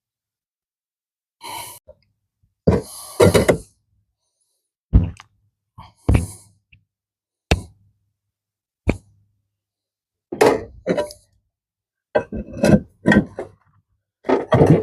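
Irregular knocks and thunks with a few short scrapes, in scattered clusters: roof tiles and tools being handled and set in place during a rake tile repair.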